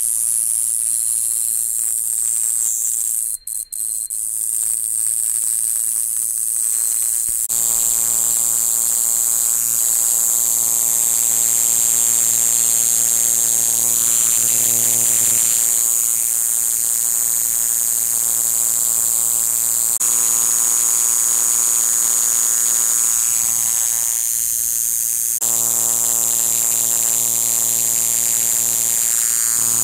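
Kayakiri katydid (Pseudorhynchus japonicus) singing a loud, continuous high-pitched buzz, breaking off briefly about three and a half seconds in. A steady low hum runs beneath it.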